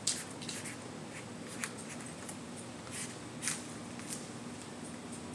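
Scattered short scratchy strokes and light rustles of markers and paper being worked at a craft table, over a steady low room hum.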